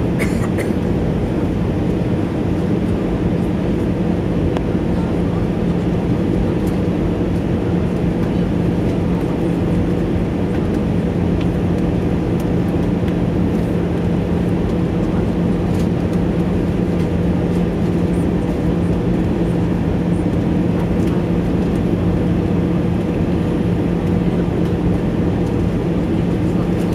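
Airbus A320 cabin noise on approach, heard from a seat beside the wing-mounted engine: steady engine drone and rushing airflow with a constant low hum.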